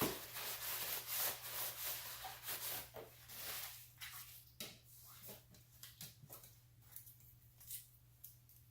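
Hands rustling and rubbing against parts during hand work, then a scattered series of light clicks and taps, over a faint steady hum.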